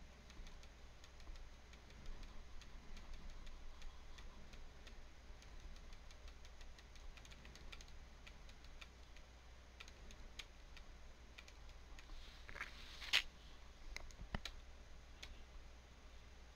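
Faint computer keyboard typing and mouse clicks, scattered small clicks with a few louder ones about 13 to 15 seconds in, over a steady low hum.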